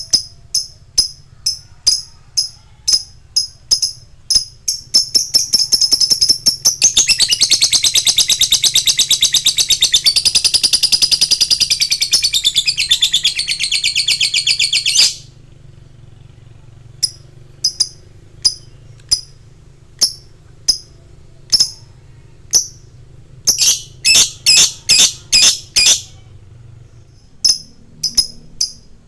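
Lovebird calling: sharp high chirps about twice a second, then a long rapid chattering trill of about ten seconds that cuts off suddenly, then chirps again with a quick flurry near the end. This is the long trill that lovebird fighter keepers call 'ngekek'.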